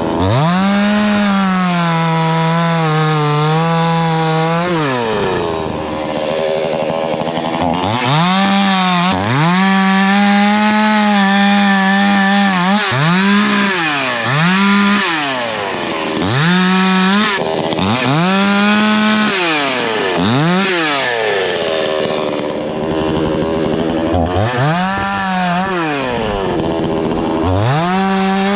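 Coocheer 62cc two-stroke gas chainsaw revved to full throttle and held for cuts through wood, again and again. Each cut lasts one to five seconds, and the engine drops back toward idle between cuts, with a sharp rise in pitch each time it is throttled up.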